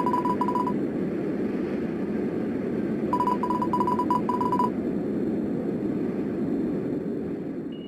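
Cartoon dialogue blips: a rapid string of short high beeps standing in for a character's speech. They come right at the start, then again from about three seconds in for a second and a half, over a steady low background rumble.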